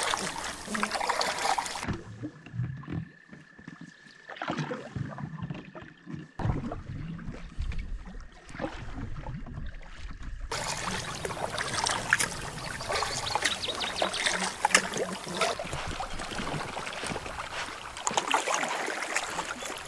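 Canoe paddles dipping and pulling through the water, with water trickling off the blades. The sound changes abruptly a few times, and a faint steady high tone runs under it for about four seconds, starting about two seconds in.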